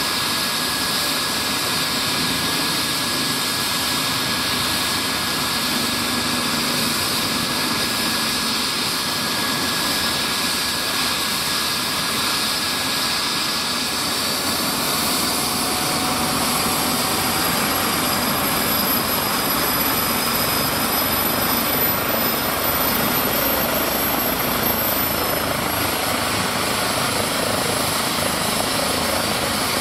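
Airbus H135 twin-turbine helicopter running on the ground during start-up, its main rotor turning: a steady turbine whine over rotor noise, with the whine rising in pitch about halfway through.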